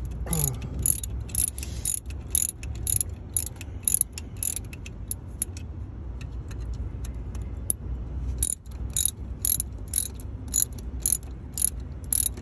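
Ratchet wrench clicking in an even rhythm of about two clicks a second as the mounting bolts of a new AC compressor are tightened, stopping for a couple of seconds in the middle and then resuming.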